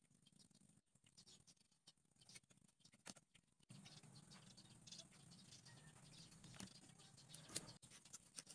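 Faint small clicks, taps and rubbing of wooden popsicle sticks being handled and pressed onto a wooden board, with a sharper click near the end. A faint low hum comes in a little under halfway through.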